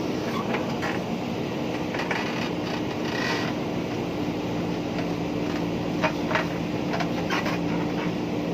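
JCB backhoe loader's diesel engine running steadily while it works soil, with scattered short metallic clanks and scrapes.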